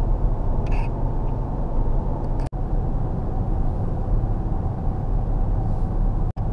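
Steady road and engine noise inside a moving car's cabin, mostly a low rumble. The sound cuts out for an instant twice.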